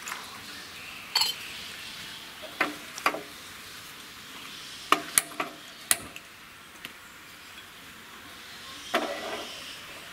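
Sharp clicks and clinks of steel kitchenware and a gas stove: a few quick clicks about five seconds in as a hand-held gas lighter is worked at the burner, then a short ringing clank near the end as a stainless steel saucepan is set down on the stove.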